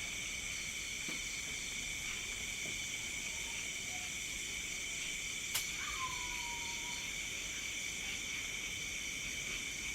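Night insect chorus of crickets, a steady high-pitched trilling in several layers. About halfway through there is one sharp click, followed by a faint short call that falls slightly in pitch.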